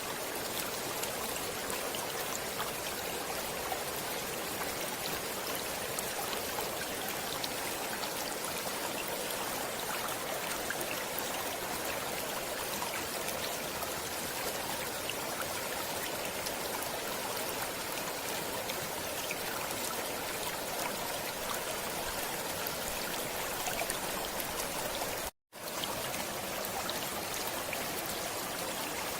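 A stream of water flowing steadily, a continuous rush dotted with small splashes. The sound drops out to silence for a split second near the end.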